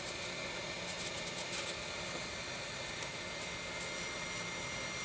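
Hot air gun blowing steadily: an even airy hiss with a faint high steady whistle, heating a plastic spray straw so its bend will hold its shape.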